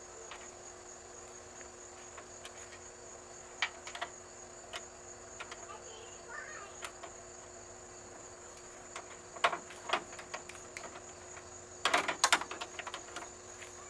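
Wrench and bolt hardware clinking and tapping against the fender mounting as the bottom fender bolt is worked into its hole: scattered single clicks, then a quick cluster of louder clinks near the end. A steady high-pitched hum runs underneath.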